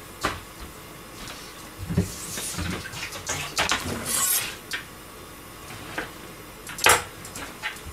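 Kitchen handling sounds: scattered clicks and knocks with two short hissy bursts in the middle, the loudest a sharp knock near the end.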